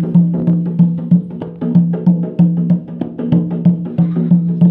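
Dholak, a rope-tensioned two-headed barrel drum, beaten by hand in a quick, uneven rhythm: about three deep strokes a second, each leaving a low ringing tone, with lighter, sharper slaps in between.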